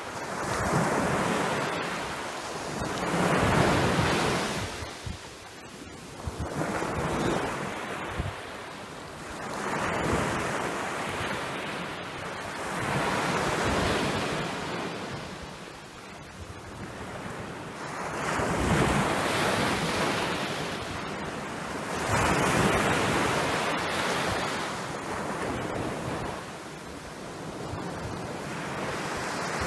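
Sea waves breaking and washing up on a beach, surging and receding every few seconds, with wind on the microphone.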